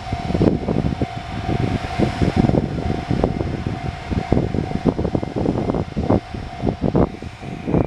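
Railway level-crossing warning bell sounding one steady tone over loud, uneven rumbling noise, as at a crossing where a train is coming.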